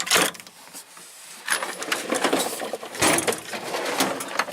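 Metal sockets and tools clinking and rattling as they are handled in a tool box drawer, with a sharp clack at the start and a busy run of small clicks through the second half.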